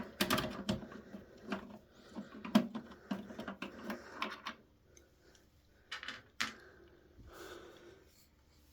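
Screwdriver backing out a motherboard screw in a computer case: scattered small metallic clicks and scrapes, busiest in the first half and again around six seconds in.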